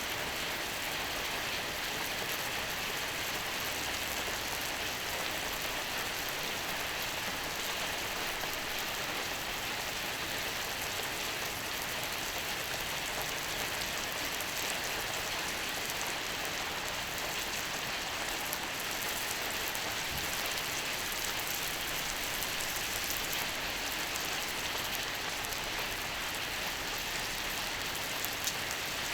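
Beef skirt steak (harami) sizzling steadily on a hot iron griddle plate, a dense even hiss with a few small pops near the end.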